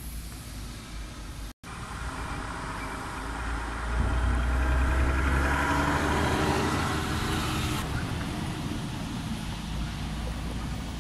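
A motor vehicle going past, a low rumble with tyre noise that swells to its loudest midway and then fades.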